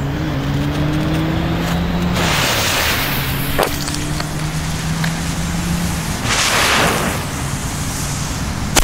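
The yellow pre-burners of two Spanish masclet firecrackers hiss in turn, each for about a second, over a low steady hum. A sharp bang comes at the very end as the first firecracker goes off.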